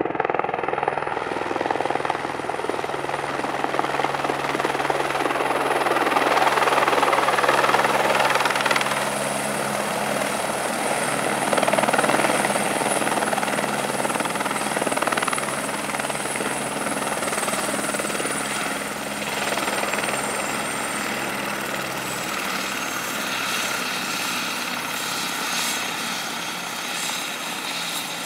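Airbus Helicopters (Eurocopter) AS350 B3e Écureuil landing and then running on the ground: a high turbine whine over the beat of the three-bladed main rotor, loudest in the first half as it comes down. About two-thirds through, the turbine whine drops in pitch and the low rotor beat fades.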